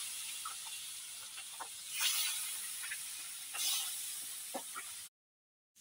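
Pieces of katla fish frying in hot oil in a kadai, a steady sizzle with small crackles. The sizzle swells about two seconds in and again a second and a half later as more pieces are laid in, then stops abruptly near the end.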